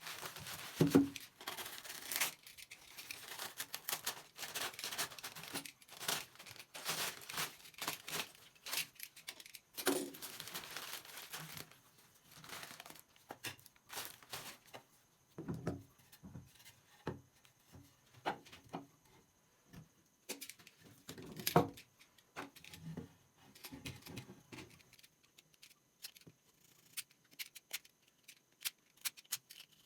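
Hand work on a broken cricket bat: irregular tearing and crinkling with scattered knocks and clicks, busiest in the first dozen seconds and sparser after.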